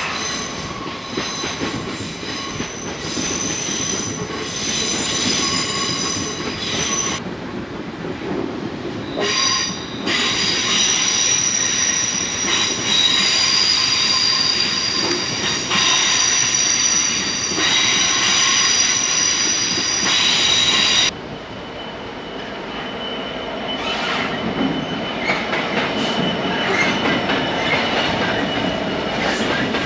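A train passing on the line, its wheels squealing with several steady high-pitched tones over the rumble of the wheels on the rails. The squeal cuts out abruptly about seven seconds in and comes back a few seconds later. It stops sharply about two-thirds of the way through, leaving the rumble of the passing train.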